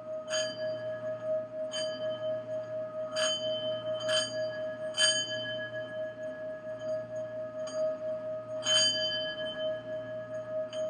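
A singing bowl ringing with one steady, wavering tone, with about six bright bell-like strikes ringing over it at irregular times.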